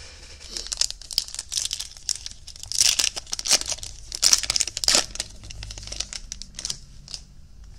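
Foil wrapper of a 2021 Topps Opening Day baseball card pack being torn open and crumpled in the hands: a dense run of sharp crackles, loudest about three and about four to five seconds in, dying away near the end.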